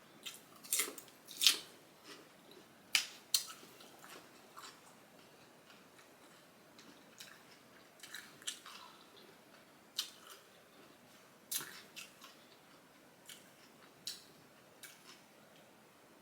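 Close-miked eating sounds: a person biting and chewing food, with sharp, crisp crunches and mouth clicks at irregular intervals, loudest and most frequent in the first few seconds.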